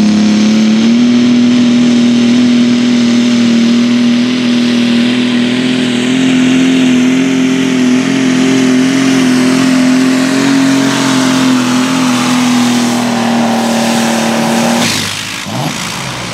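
Farmall light limited super stock pulling tractor's engine running flat out under load as it drags the weight-transfer sled down the track, a loud, steady drone that climbs slightly in pitch about a second in. About fifteen seconds in, the engine is cut back suddenly and the drone drops away.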